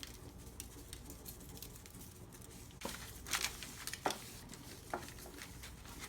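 Light pattering and a few soft taps as dry seasoning (Goya Sazon) is sprinkled from a packet onto a raw chuck roast, the taps strongest in the middle of the stretch.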